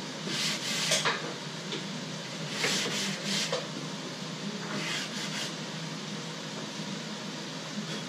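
A hand-held block rubbed along the top edge of a plywood sheet in three or four separate scraping strokes, the last about halfway through, over a steady low hum.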